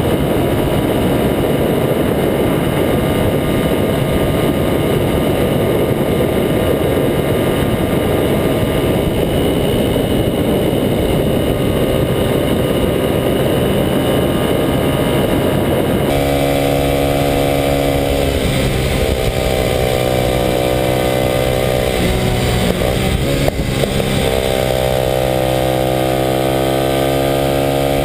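Kawasaki KLX250SF's single-cylinder four-stroke engine through a Muzzy aftermarket exhaust, running at speed. For the first half the engine is buried in a heavy rushing noise. After a cut about halfway, the engine note comes through clearly, its pitch dipping and climbing again a few times, then rising steadily near the end as the bike accelerates.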